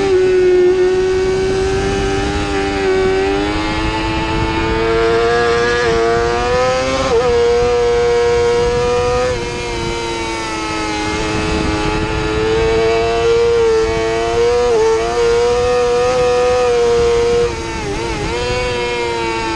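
A 2017 Yamaha YZF-R6's 600 cc inline-four racing engine running hard at high revs, with the tachometer between about 12,000 and 14,000 rpm. Its pitch climbs and falls, with short breaks several times as gears and throttle change. Wind rushes past underneath.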